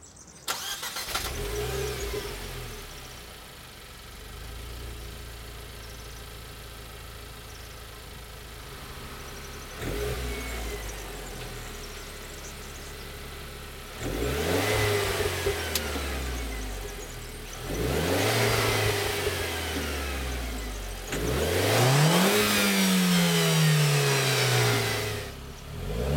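Renault Clio RS 2013's 1.6-litre turbocharged four-cylinder, heard at the exhaust, starts about half a second in and settles to idle. It is then revved four times, each rev rising and falling back to idle, the last one the longest and loudest.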